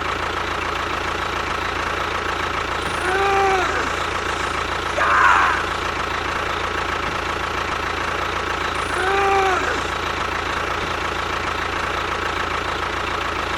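Steady engine-like running noise at an even level. Twice, about six seconds apart, comes a short arching tone with overtones, and in between there is one brief noisy burst.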